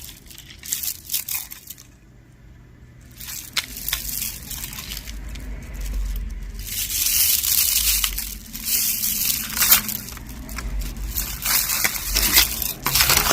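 Hands rummaging through a box of costume jewelry: irregular crinkling and rustling with scattered small clicks as pieces are handled and moved.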